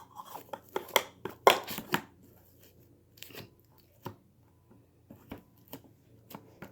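Clear slime being handled, squished and poked, giving irregular clicks and crackles that come thickly for about two seconds and then only now and then.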